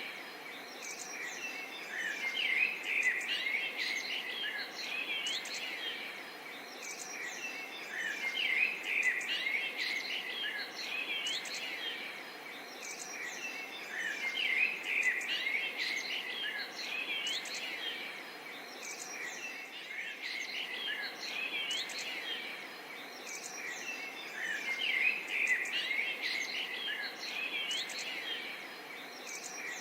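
A dense outdoor chorus of many birds and insects chirping and trilling over a soft steady background hiss. The chorus swells and eases about every six seconds.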